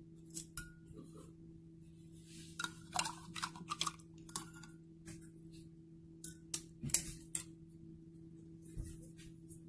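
Metal spoon clinking irregularly against the inside of a ceramic coffee mug while stirring coffee and creamer, with a loudest clink a little after the middle. A steady low hum runs underneath.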